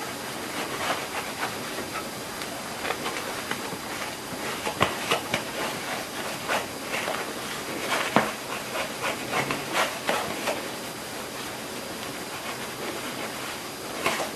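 A cloth damp with glass cleaner rubbing and wiping over a CD, with irregular scuffs and light clicks of the disc being handled over a steady hiss.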